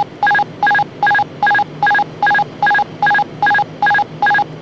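Gulfstream 200 cockpit autopilot-disconnect warning: a train of short electronic beeps at two pitches, about two and a half a second, that stops near the end. It sounds as the autopilot and yaw damper are switched off for a hand-flown landing.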